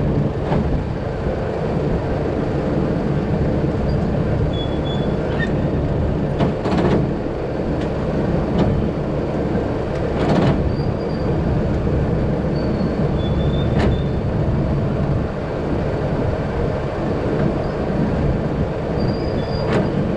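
Heavy diesel machinery running steadily, with a few sharp metal clanks and short high squeaks over it.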